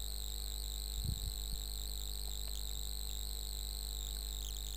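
Steady background noise of the recording setup: a low electrical hum with a faint high-pitched whine over it. A brief low thump comes about a second in.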